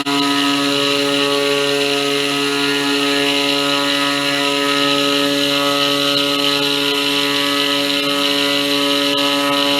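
Homemade CNC machine running, its small DC spindle motor giving a steady whine with a hiss over it.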